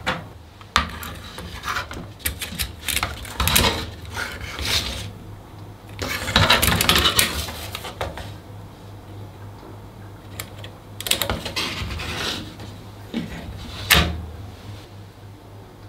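Kitchen handling sounds: fried rice being scraped out of a metal bowl into a small metal camping skillet, with clinks and scrapes of metal, then a sharp knock near the end as the skillet is set down on a wooden tray.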